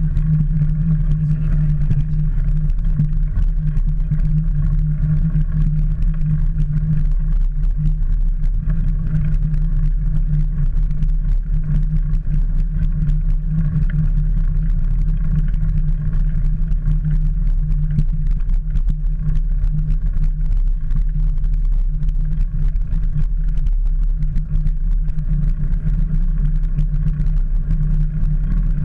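Steady low rumble and hum from a camera mounted on a mountain bike's handlebars while riding a dirt and gravel track. This is wind and vibration noise from the ride.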